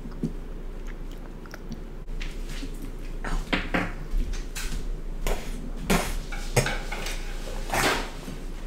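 Close-miked eating of honeycomb: chewing and fingers pulling apart sticky comb, making irregular wet clicks and crackles that grow busier and louder from about two seconds in.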